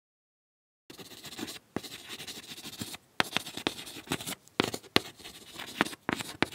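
Chalk scratching and tapping on a chalkboard, as in writing: a scratchy hiss with many sharp, irregular taps, starting about a second in.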